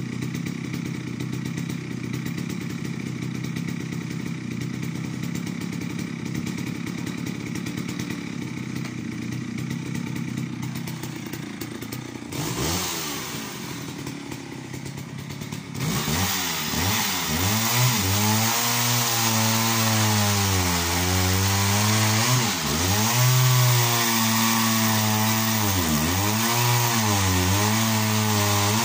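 Jonsered 80 two-stroke chainsaw running at a steady idle, then revving up about 12 s in. From about 16 s it cuts into a log, its engine speed dipping and rising again and again as it labours in the cut.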